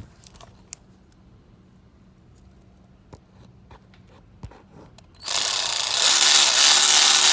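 A few faint clicks and taps, then about five seconds in a power drill starts up and runs steadily at speed, turning out a broken alternator bolt that has been cut in half.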